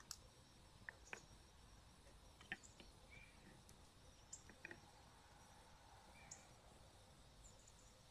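Near silence broken by a handful of faint, sharp clicks and small knocks, scattered irregularly through the first five seconds, with a few brief faint high chirps.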